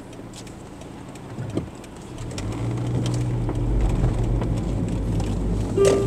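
Car engine and road noise heard from inside the moving car: a steady low rumble that grows louder about two seconds in.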